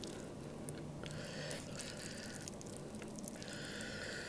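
Faint wet, sticky sounds of sauce-coated instant noodles and melted cheese being stirred and lifted with wooden chopsticks.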